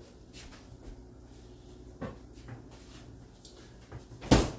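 Kitchen utensil knocking on a skillet while smash-burger patties are pressed thin: a light knock about two seconds in and a louder thump near the end.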